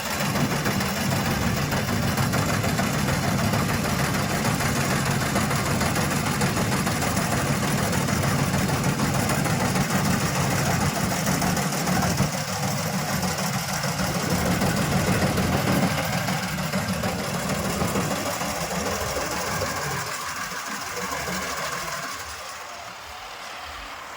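John Deere combine harvester running with a steady, loud engine drone, growing quieter near the end.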